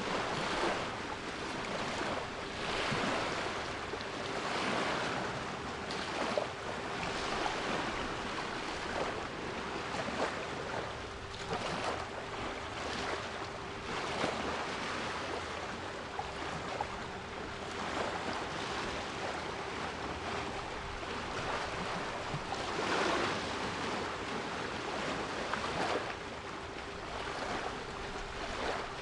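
Sea waves washing in and out in uneven swells, with a steady 396 Hz pure tone held underneath them.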